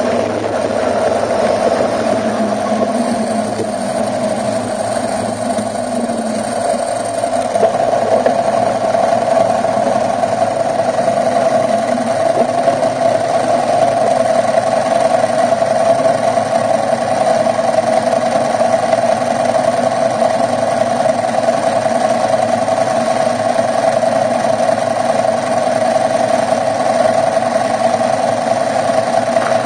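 A vehicle engine running with a steady, even drone.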